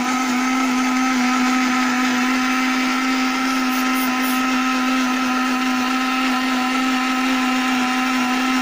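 Electric mixer grinder with a steel jar running at a steady speed, blending chopped green mango with water and sugar into juice; one even motor whine.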